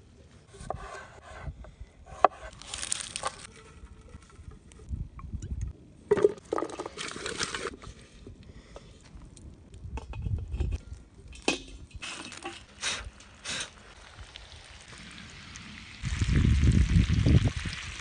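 Cooking sounds of pots and utensils being handled: scattered clinks and knocks, with liquid sounds. A louder rushing noise comes in near the end and lasts about a second and a half.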